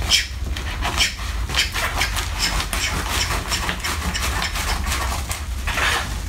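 Scissors snipping through a plastic mailer bag: a quick run of short sharp cuts, a few a second, with the plastic rustling more densely near the end.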